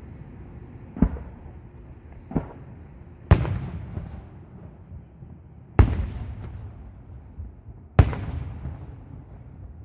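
Aerial firework shells bursting: five sharp booms a second or two apart. The last three are the loudest, and each fades out over about a second.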